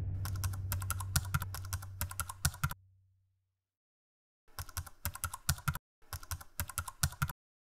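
Typing sound effect: rapid key clicks in three runs, the first about two and a half seconds long, then a pause of nearly two seconds before two shorter runs, over a low hum that fades away in the first few seconds.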